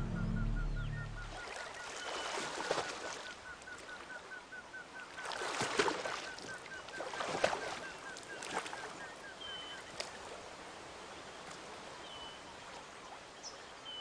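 Jungle ambience: a rapid, even chirping repeats about four times a second, with short whistled bird calls now and then. Several bursts of rustling come from someone pushing through undergrowth. Low music fades out in the first second or so.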